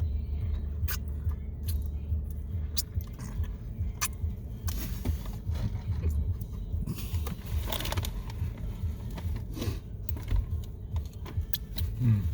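Paper fry packaging rustling and clicking as it is handled during eating, over a steady low rumble.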